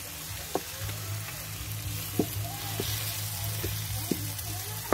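Flaked crab meat sizzling in hot oil in a non-stick frying pan while a wooden spatula stirs it, with several light knocks of the spatula against the pan.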